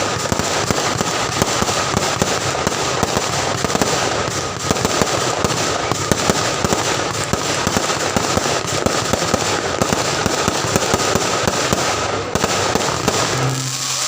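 Fireworks display going off in a dense, unbroken barrage of rapid bangs and crackles.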